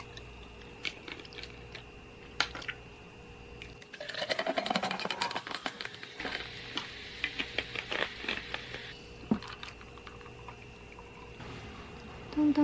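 A drink poured from a bottle into a glass mug, the pitch rising as the glass fills, followed by a few seconds of crackling bubbles. A few light clicks come before the pour.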